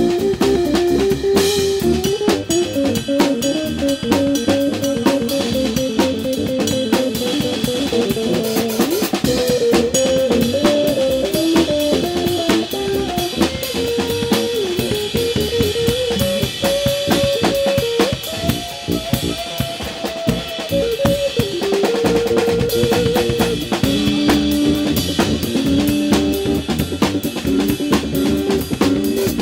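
Live rock band playing an instrumental passage: electric guitar playing a melody over a full drum kit, with no singing.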